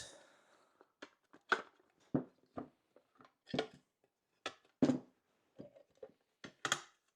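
About a dozen light, irregular clicks and knocks as a Homelite Super 2 SL chainsaw is taken apart by hand, its engine assembly pulled back out of the case.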